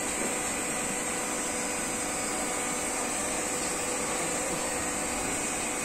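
Hydraulic power unit of a 16-ton vertical broaching machine running with a steady hum and hiss.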